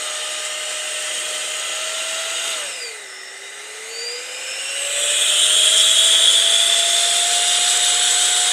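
Cordless electric air duster's fan motor running with a steady high whine and rush of air. About three seconds in the whine drops in pitch and quietens, then gradually rises again and runs louder.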